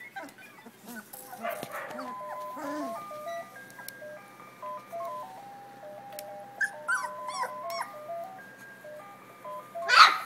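Puppies play-fighting, with short growls and whines and a few high squeaks, then a loud yelp near the end. A simple tinkling tune of plain stepped notes plays throughout.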